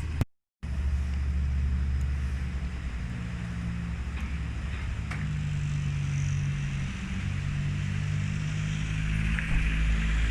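Low, steady rumble of a motor vehicle running, its low engine pitch shifting up and down in steps.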